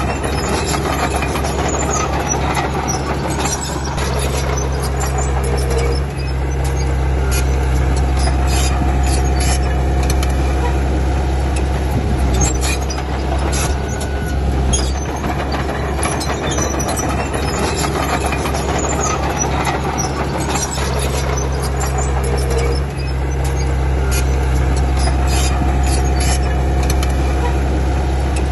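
Crawler bulldozer's diesel engine running steadily under load, with clanking and squealing from its steel tracks. The engine sound dips briefly about six seconds in and again a little past twenty seconds.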